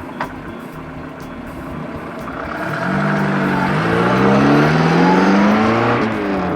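Motor vehicle engine sound effect, revving up with a steadily rising pitch and growing louder from a few seconds in, then dropping off just before the end. There is a brief sharp click near the start.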